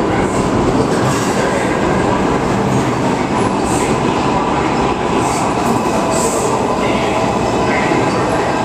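An R142-series New York City Subway train moving along the station platform: steady wheel-on-rail running noise with a faint steady whine and a few brief hissy flares.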